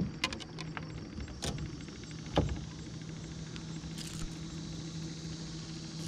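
A few sharp knocks and clicks in the first two and a half seconds as a just-landed peacock bass and the lure are handled in an aluminium boat. Under them a steady low electric hum from the bow-mounted trolling motor.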